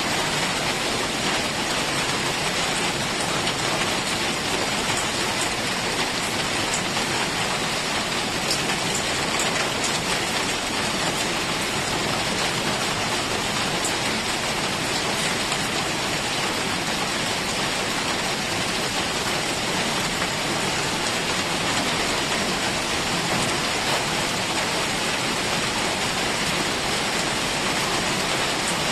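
Heavy rain falling steadily, a dense even hiss of drops with no let-up.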